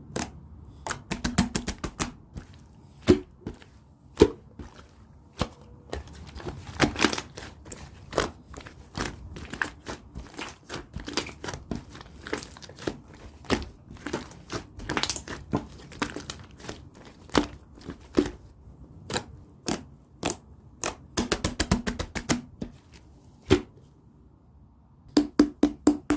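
Chewy slime being kneaded and stretched by hand: sticky clicks, pops and tearing crackles, with a fast run of clicks near the end.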